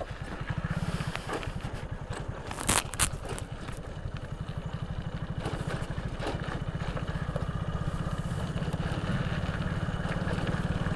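Vehicle engine running steadily with a low, even pulse that grows a little louder toward the end. Two sharp knocks come close together about three seconds in.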